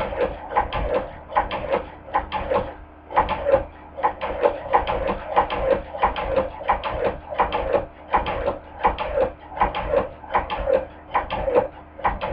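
Hand-crank cobbler sewing machine stitching: an even mechanical clacking of about two or three strokes a second as the crank is turned, with a brief pause about three seconds in.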